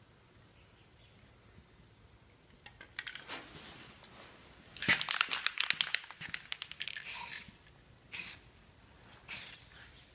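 Aerosol spray-paint can: a quick run of rattling clicks in the middle, then three short hissing bursts of spray about a second apart, each a light pass of paint.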